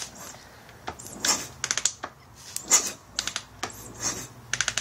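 Motorcycle engine being turned over by its kick-starter three times, about a second and a half apart, each kick a short rush followed by a quick run of four or five sharp clicks. The engine is cranked with the plug out and grounded, to test a newly wired racing CDI for spark.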